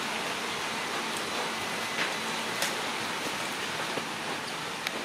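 A steady, even hiss of noise, with a few faint light ticks scattered through it.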